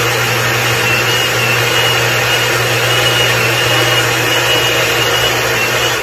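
Countertop jug blender running steadily, liquefying a fruit and vegetable smoothie: a constant motor drone with a faint high whine.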